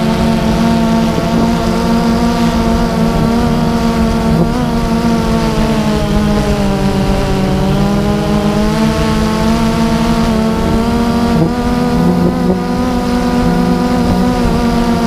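DJI Phantom 2 quadcopter's four electric motors and propellers buzzing steadily in flight, the pitch drifting slightly up and down as the drone adjusts its speed.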